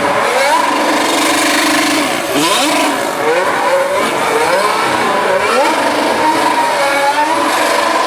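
Formula 1 car engine revving hard, its pitch climbing in quick rising sweeps and dropping back again several times over.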